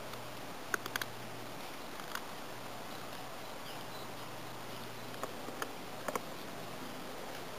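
Small friction-folding knife carving a wooden spoon: short sharp clicks of the blade cutting into the wood, a few close together about a second in, one around two seconds, and another group around five to six seconds, over a steady low hiss and hum.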